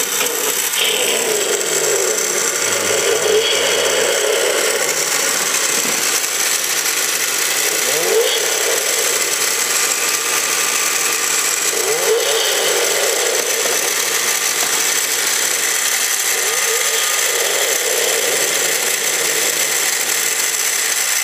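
Sampled Hemi engine sound played by the Snap-on Hemi engine clock's sound chip, triggered by its ignition key: the recorded engine idles and revs, with rising revs about 8 and 12 seconds in.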